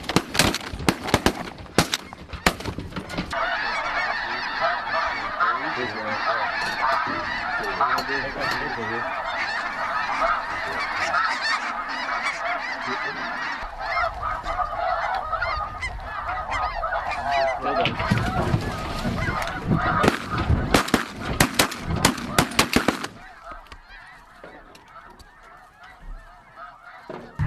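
Rapid shotgun fire in the first few seconds, then a large flock of geese, mostly snow geese, calling continuously in a dense chorus. A second run of sharp shots comes about eighteen to twenty-three seconds in, after which the calling drops away.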